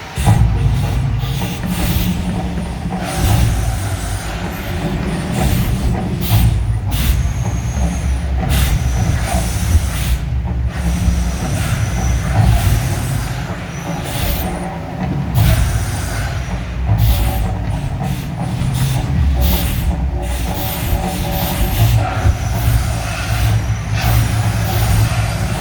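Mirage volcano show effects: a deep, continuous rumble with a hissing roar over it, starting suddenly at the opening and running on at full strength.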